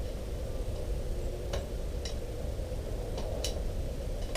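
A screwdriver working at a steel circlip inside a motorcycle fork's outer tube: a few short, sharp metallic clicks spaced irregularly, over a steady low background hum.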